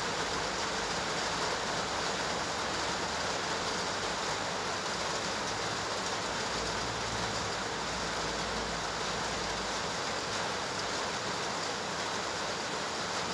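Steady rushing background noise with no distinct knocks or tones.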